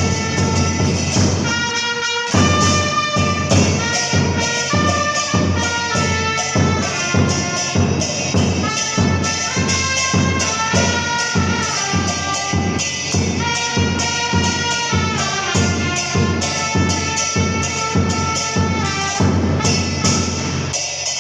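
Two trumpets playing a cumbia melody in close harmony over a steady beat on a bombo murguero (murga bass drum), with a brief break about two seconds in.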